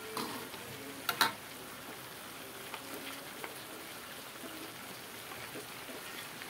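Patin fish pieces in curry paste sizzling quietly in an aluminium wok, the fish having released its own juices. A metal ladle knocks against the wok twice near the start, the louder knock about a second in.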